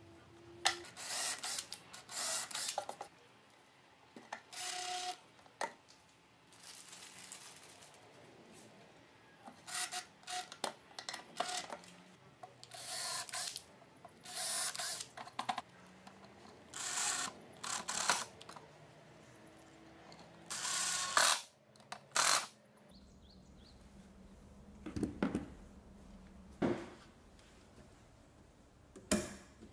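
Cordless drill-driver running in many short bursts of about half a second to a second, driving screws into plywood. Near the end there are a few separate knocks and clicks.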